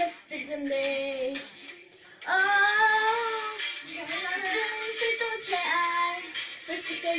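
A young girl singing a song into a toy microphone, holding notes that bend in pitch, with a short pause about two seconds in.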